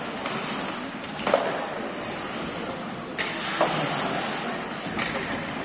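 Ice hockey skates scraping and carving on the ice, with a few sharp clacks of sticks and puck, the loudest about a second and a half in.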